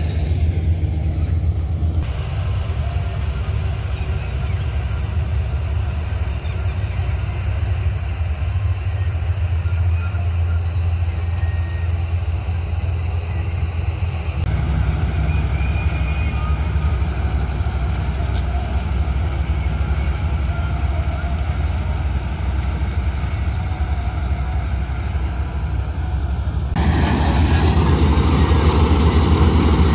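Combine harvester running steadily while cutting wheat, a deep engine drone. The sound shifts abruptly a few times and is louder near the end.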